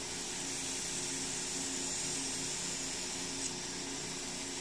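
Double wheel grinder with a 4-inch wheel attachment running with a steady hum, with the hiss of a steel knife blade being ground against the wheel. There is a brief tick about three and a half seconds in.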